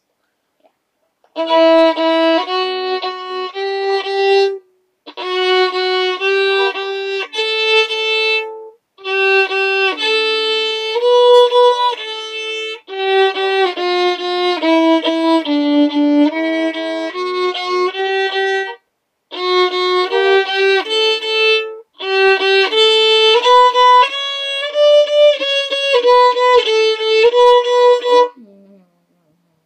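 Solo violin played by a young student, a bowed melody in short phrases with brief breaks between them, starting about a second and a half in and stopping shortly before the end.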